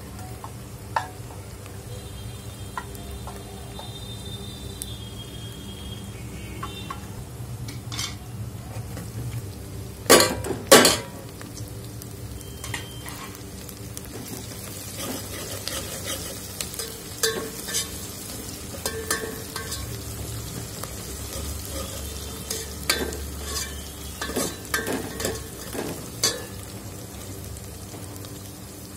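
A tadka of chopped onion, green chillies and dried red chillies sizzling in oil in an aluminium pot, stirred with a steel ladle that clinks and scrapes against the pot. Two loud knocks come about ten seconds in, and the clinking gets busier in the second half.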